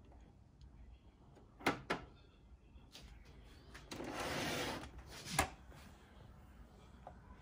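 Plastic clicks and a scrape from a Dell C1760nw colour laser printer's case being handled to open its front toner-cartridge door: two quick clicks, a sliding scrape lasting about a second, then a sharp snap.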